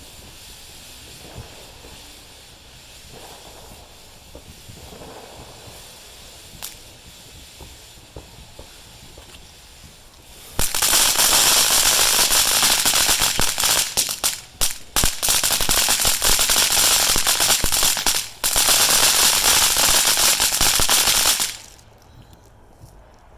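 A string of firecrackers going off in a rapid, dense crackle for about ten seconds, starting about ten seconds in, with two brief breaks. Before it, only faint background hiss with a few scattered pops.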